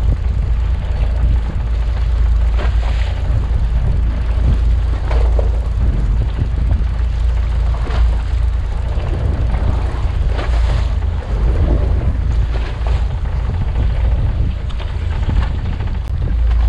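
Wind buffeting the microphone in a steady low rumble, with sea water splashing against the side of a small fishing boat now and then.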